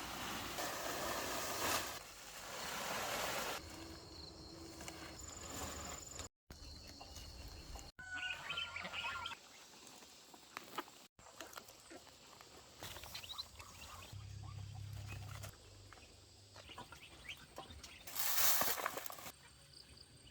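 Outdoor rural ambience that changes abruptly several times, with brief bird chirps about eight seconds in.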